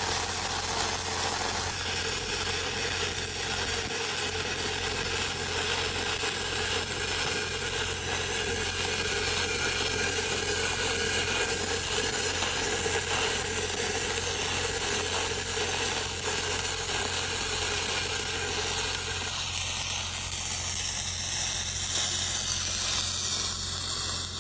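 Stick (SMAW) welding arc crackling steadily as a root pass is run, over a steady low hum.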